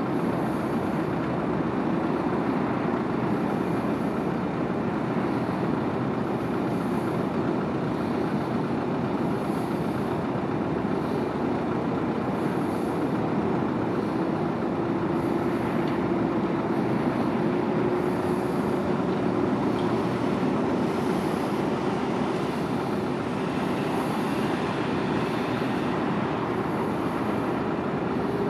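Steady drone of a RO-RO ship's engines as the ship gets under way. A faint hum in it edges slightly higher in pitch about halfway through.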